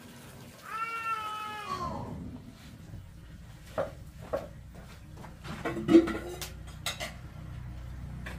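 A cat meowing: one drawn-out meow falling in pitch about a second in. It is followed by scattered knocks and clatters, the loudest around six seconds in.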